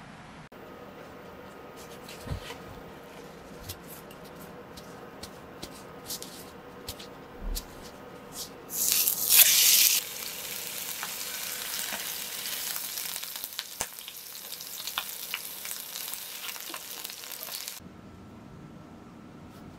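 Mackerel steak frying in hot cooking oil in a pan. Scattered pops of spitting oil are followed, about nine seconds in, by a loud burst of sizzling that settles into a steady sizzle with occasional pops, then stops suddenly near the end.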